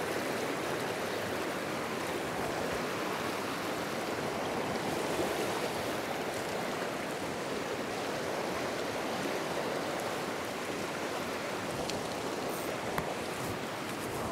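A small, shallow, rocky stream flowing steadily over stones, an even rushing of water.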